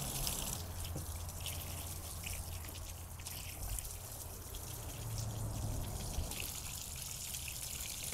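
Running water rinsing slime off a freshly caught halibut, an uneven splashing hiss that swells and eases.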